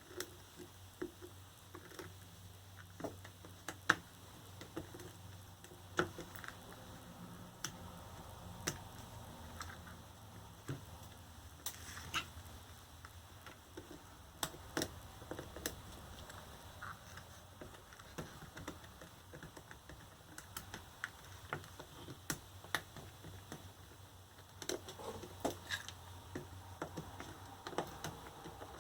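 Small hand tools picking, scraping and clicking at a plastic scooter battery pack casing, digging out weatherproofing around small Phillips screws. The clicks and taps come irregularly, several a second at times, over a faint steady low hum.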